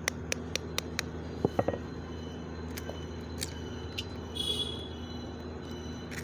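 A run of light clicks and knocks, kitchen utensils and containers being handled, over a steady low hum. Two louder knocks come about one and a half seconds in, and a short scrape about four and a half seconds in.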